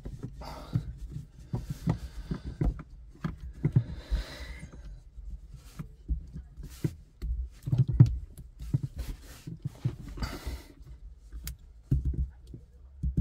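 Close handling noise of hands working plastic push-fit water pipe fittings on a 12-volt water pump head: irregular clicks, knocks and low thumps, with a couple of brief rustles.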